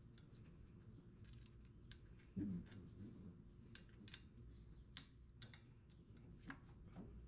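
Faint metallic clicks and light scrapes of a brake caliper being fitted over new brake pads onto its bracket, with one duller knock about two and a half seconds in.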